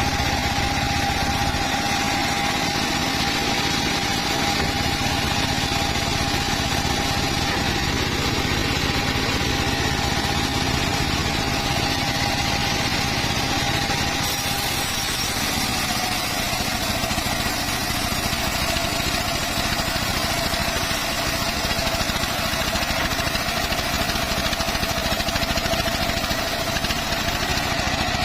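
Circular saw and its drive running continuously with a steady high whine. The whine drops slightly in pitch about halfway through and holds lower until it starts rising again near the end.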